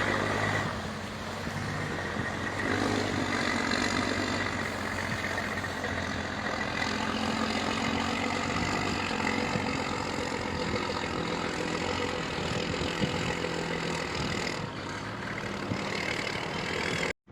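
Heavy truck's engine running steadily at low speed while hauling an oversized load. It cuts off abruptly near the end.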